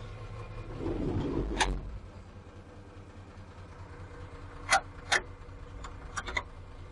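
The diesel engine of a Kato 25-ton rough-terrain crane running steadily with a low hum, a little louder for the first second or so. Two sharp clicks a little under half a second apart come about two-thirds of the way through, followed by a few lighter clicks.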